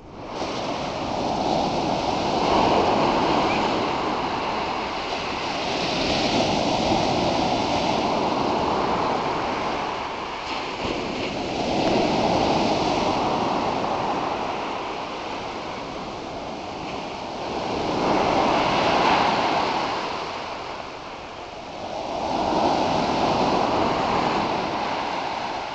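Heavy surf after a storm: waves breaking and washing up a sandy beach, the noise swelling with each breaker and falling back every few seconds.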